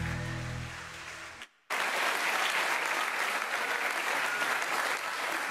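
The last held chord of a song fades out, and after a brief silence about a second and a half in, an audience breaks into steady applause.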